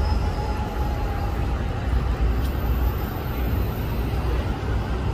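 Diesel-electric hybrid city bus driving up through the intersection, a steady low rumble mixed with the noise of passing street traffic.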